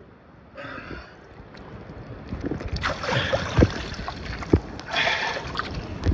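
Sea-pool water splashing and sloshing close to the microphone as a swimmer strokes with one arm and kicks, in uneven surges, with a few dull knocks.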